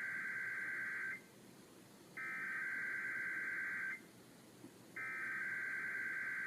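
Emergency Alert System SAME header: three bursts of rapid two-tone digital data, each a little under two seconds with about a second's pause between. The first burst is already under way at the start and ends about a second in. These data bursts open a Required Monthly Test broadcast.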